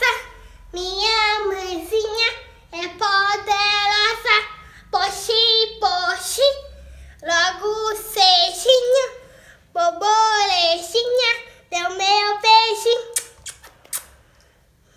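A young boy singing a children's song on his own, without accompaniment, in short phrases of a second or two. He stops about a second before the end.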